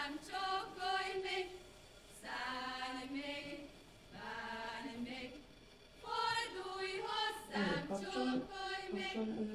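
A group of voices singing a folk song without instruments, in phrases of a second or two separated by short breaks.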